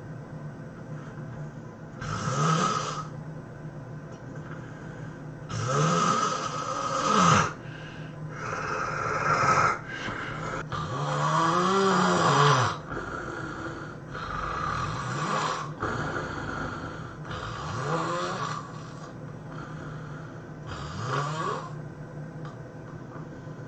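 A person snoring loudly: about seven drawn-out snores a few seconds apart, several with a pitch that slides up and down.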